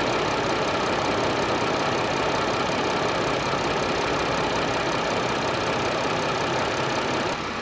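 Chevy 3.6 V6 idling at operating temperature with its electric radiator cooling fans running, a steady rushing noise. The sound dips slightly just before the end.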